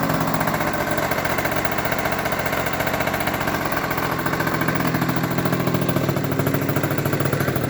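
Small motorbike engine idling steadily through a newly fitted aftermarket exhaust pipe, with an even, rapid exhaust beat that sounds like a dirt bike.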